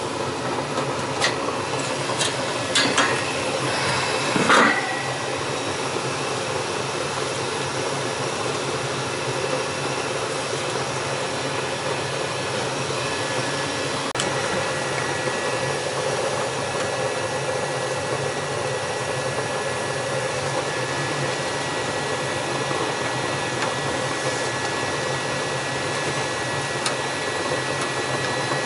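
80+ gas furnace running with its burners lit, a steady blowing hum from its motors and flame. A few sharp clicks and knocks come in the first five seconds, the loudest about four and a half seconds in.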